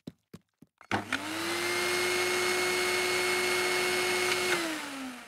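Canister vacuum cleaner switched on about a second in, its motor spinning up to a steady whine over the rush of air, then switched off near the end, the whine falling in pitch as it winds down.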